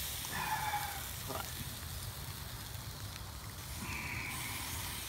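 Shrimp sizzling on the grate of a charcoal grill, a steady hiss over a low rumble, with two brief high-pitched calls, one about half a second in and one near four seconds.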